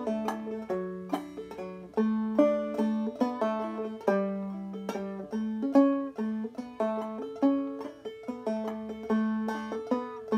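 Five-string banjo played clawhammer style in Double D tuning: a melody line of single plucked notes with pull-offs, each note struck and ringing away before the next, several a second.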